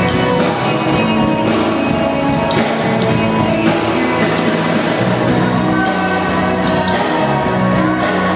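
Live band playing on stage, with guitars and drums, in a large hall.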